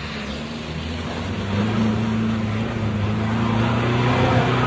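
Pickup truck's engine pulling steadily under load as it drives through deep mud, a low drone that grows gradually louder as the truck approaches.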